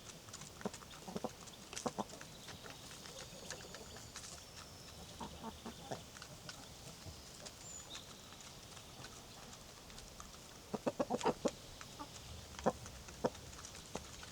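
Chickens clucking in short, scattered bursts, with a quick run of clucks about three-quarters of the way through. Small birds chirp faintly in the background.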